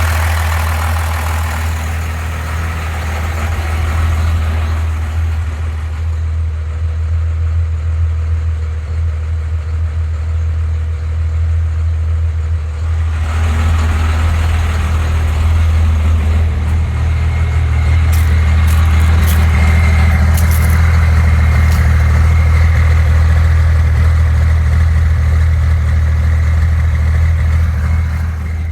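1993 Dodge D250's 12-valve Cummins 5.9-litre inline-six turbodiesel running steadily with a low, heavy drone, growing somewhat louder a little past halfway. The engine has a misfire that the owner suspects may come from the injection pump.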